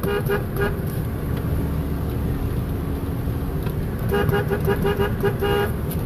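A vehicle's engine and road rumble run low and steady under two bursts of rapid short beeps, about six a second. The first burst comes at the very start and the second from about four seconds in.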